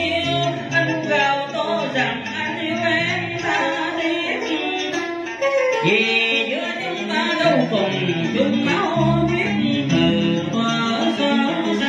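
A male singer singing a cải lương passage with sliding, ornamented pitch, accompanied by plucked strings: a cải lương guitar and a đàn sến.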